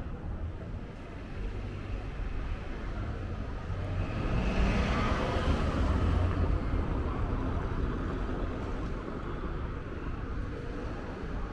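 City street traffic noise with a steady low rumble. A motor vehicle passes about halfway through, swelling and then fading away.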